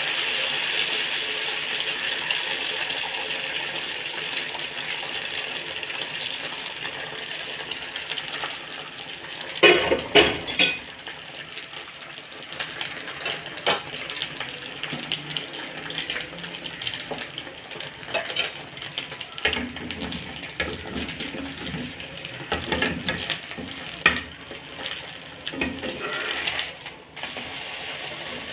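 Egg batter sizzling in a hot frying pan, the sizzle fading over the first several seconds. Then a metal spatula clinks and scrapes against the pan, with a loud clatter about ten seconds in and scattered clinks later.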